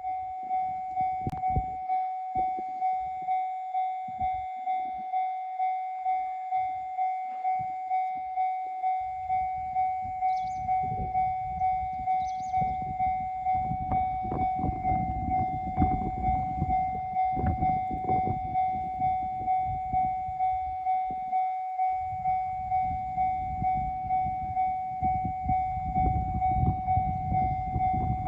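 Japanese level-crossing warning bell ringing in a steady 'kan-kan' at about two strikes a second. From about nine seconds in, a train passes over the crossing with a rumble and wheel clatter under the bell, easing briefly and then building again near the end.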